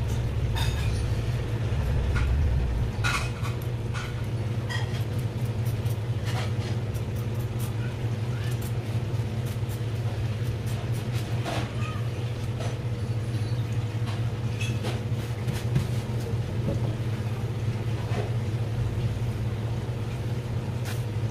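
A steady low motor hum, with scattered light clicks and scrapes of a knife working a cutlassfish fillet on a plastic cutting board as the skin is cut away.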